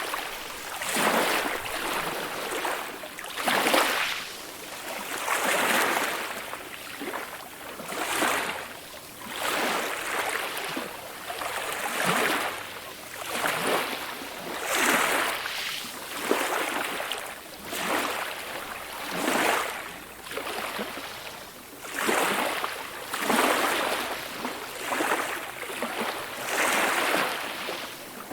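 Ocean waves washing in and out, a rushing swell of surf that rises and falls roughly every second and a half.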